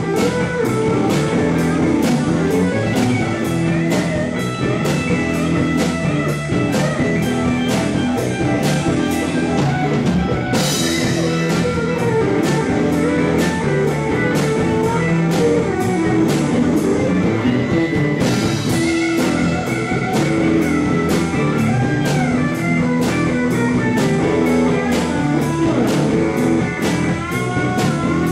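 Live blues-rock band playing: electric guitars and bass over a steady drum-kit beat, with two cymbal crashes, about a third and about two-thirds of the way through.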